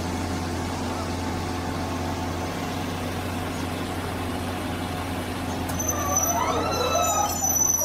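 Engine of an UltraTrex amphibious excavator running steadily with a low hum as the machine crawls on its pontoon tracks. About six seconds in, a high squeal joins.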